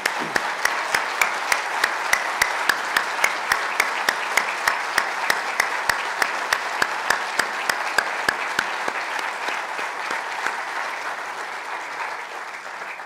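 Audience applause. One nearby clapper stands out with sharp claps at about three a second until about two-thirds of the way through, then the applause thins and dies away.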